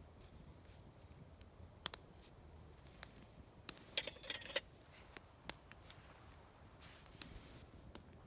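Campfire under a steak crackling with scattered sharp pops, and a quick cluster of clicks about four seconds in.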